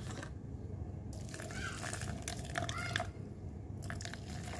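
Hot water poured from a thermos flask into a plastic cup over tamarind and sugar, to dissolve them. There are a few sharp clicks at first as the flask's lid is handled, then a steady pour.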